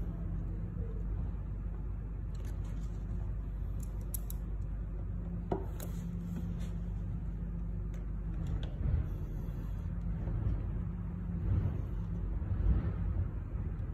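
Scattered light clicks and knocks of hands and a tool working on a wooden rowing machine's seat and rail, with a run of heavier knocks near the end, over a steady low hum.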